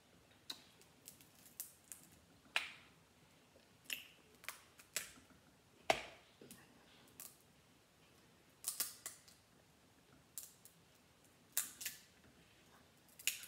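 Crab leg shells cracking and snapping as they are broken apart by hand: a dozen or so irregular sharp cracks and clicks, the loudest about six seconds in.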